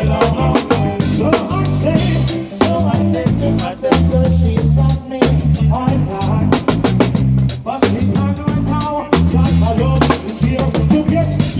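Live band music with a drum kit keeping a steady, upbeat beat with rimshots over a bass line, and a melody line above.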